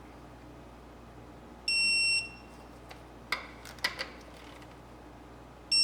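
Snap-on TechAngle electronic torque wrench beeping twice, each a high steady tone of about half a second: the signal that the flywheel bolt has reached the set torque of 16 foot-pounds. A few sharp metal clicks of the wrench on the bolt come between the beeps.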